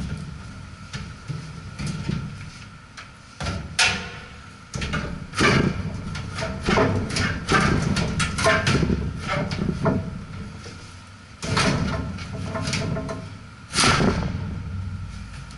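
Sheet-metal blower housing being wiggled and pushed back into an air handler cabinet, scraping and clunking against the metal, with a run of irregular knocks and rattles where it sticks and won't slide fully home.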